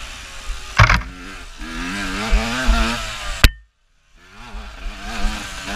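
Dirt bike engine revving up and down as the rider works the throttle on a rough trail. There is a loud knock about a second in and a sharp click a little past the middle, after which the sound cuts out for about half a second.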